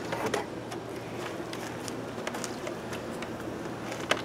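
Hinged wooden roof of a top-bar beehive being lifted open: a few light knocks near the start and one sharp knock near the end, over a steady low hum.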